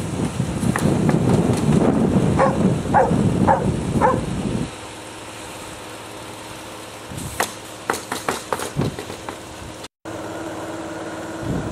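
Wind buffeting the microphone while a dog barks about five times. Once the wind drops there is a short run of scattered knocks and clicks, and after a brief dropout a steady hum.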